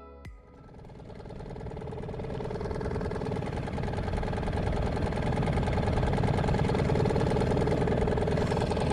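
Small outboard motor on an aluminium fishing boat running steadily. It swells over the first three seconds or so, then holds at an even level.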